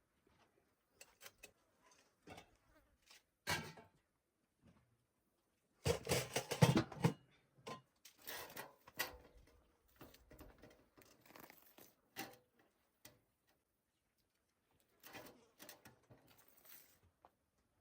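Scattered knocks, taps and rustling handling noises from food preparation, with a louder cluster of clattering about six seconds in.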